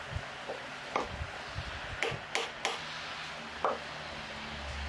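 A handful of sharp clicks and taps, unevenly spaced over a steady hiss: a screwdriver and small screws knocking against the distributor housing as the ignition coil's hold-down screws are taken out of a Mazda T2T60571 distributor.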